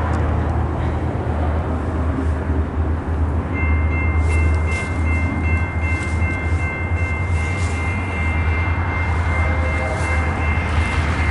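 Grade-crossing warning bell ringing, starting about three and a half seconds in, over the steady low rumble of the approaching local train.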